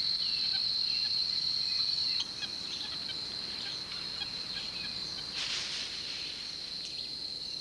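Steady, high-pitched buzz of a forest insect chorus, dropping a little in level about two seconds in. A few faint chirps sound in the first two seconds, and a brief rush of noise about five and a half seconds in.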